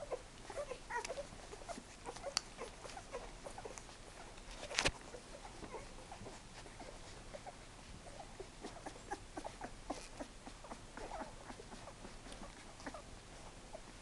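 Eleven-day-old goldendoodle puppies nursing: a steady stream of small, irregular wet sucking and swallowing clicks mixed with tiny squeaks, and one sharper click about five seconds in.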